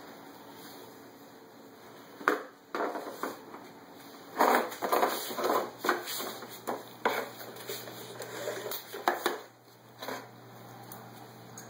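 Irregular clattering and knocking of hard plastic toys being handled, with a busy run of knocks and rattles about four to six seconds in.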